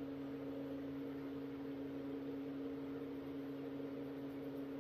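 Steady machine hum holding a constant pitch over a faint hiss, without change or distinct knocks.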